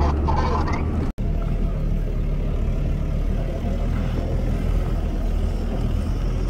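Steady low rumble of a car engine and road noise heard from inside a moving car. The sound cuts out for an instant about a second in.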